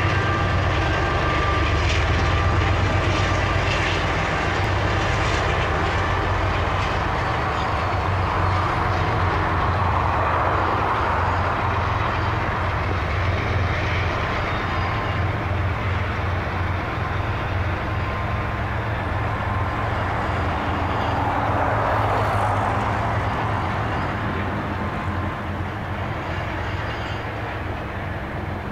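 Canadian Pacific diesel-electric locomotives running as they haul a grain train past, giving way to the steady rolling of covered hopper cars on the rails. The sound fades a little near the end.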